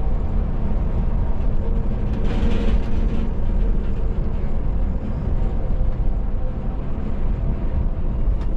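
Scania coach's engine and road noise heard inside the cab, a steady low rumble as the bus drives at speed past trucks. About two seconds in, a short rush of hissing noise rises over it for about a second.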